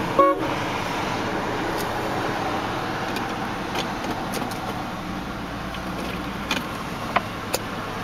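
A short car-horn toot right at the start, then the 1998 Cadillac DeVille's 4.6-litre Northstar V8 idling steadily, heard from inside the cabin, with a few faint clicks.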